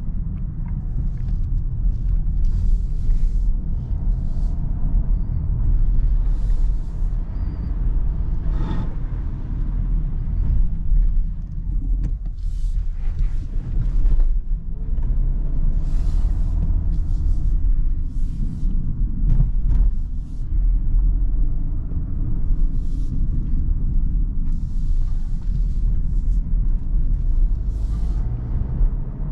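Cabin sound of a Kia Sorento hybrid with a 1.6-litre turbocharged four-cylinder petrol engine, driving: a steady low rumble of engine and road, with short bursts of higher hiss now and then.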